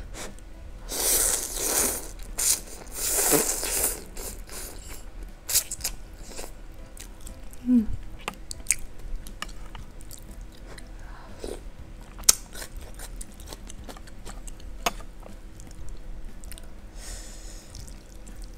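A person slurping instant noodle soup and chewing. Wet mouth clicks run throughout. Two sharp clinks of a steel fork or spoon against a ceramic bowl come about midway.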